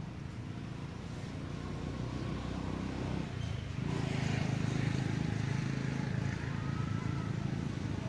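Low engine rumble of a passing motor vehicle, growing louder about four seconds in and easing slightly near the end.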